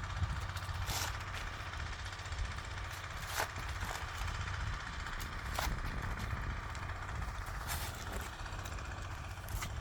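Mini excavator engine running steadily, with a few sharp knocks spaced a couple of seconds apart as the machine works the soil.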